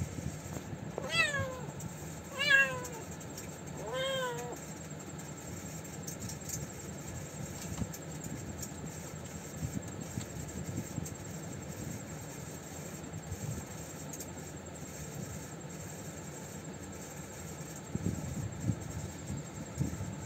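A cat meowing three times in quick succession, each meow falling in pitch, the second the loudest; after that only a low steady background hum.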